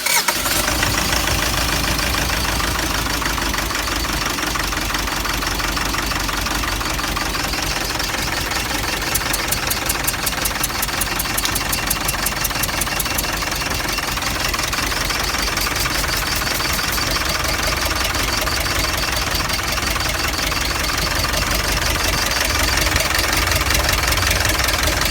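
Mitsubishi Triton's 4D56 2.5-litre four-cylinder diesel engine idling roughly with a steady knock: a misfire traced to a faulty number-one injector and lost compression in cylinder one.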